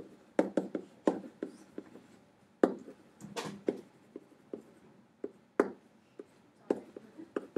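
A pen stylus tapping and scratching on a hard writing surface as words are handwritten, in quick irregular clicks.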